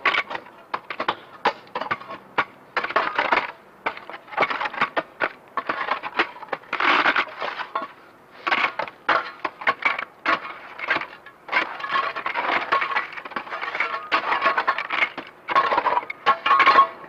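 Irregular clattering, cracking and knocking: many sharp hits in quick succession with short denser bursts, like hard debris being thrown and broken.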